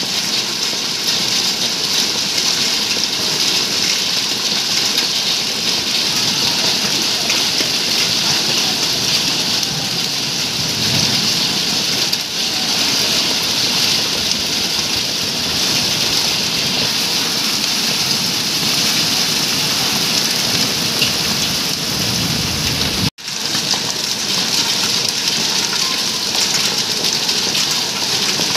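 Heavy rain mixed with hail pelting onto wet paving: a dense, steady hiss that breaks off for an instant about three-quarters of the way through.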